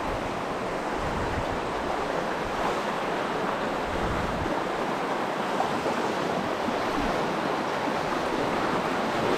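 Strong river current rushing over rocks: a steady, even rush of water.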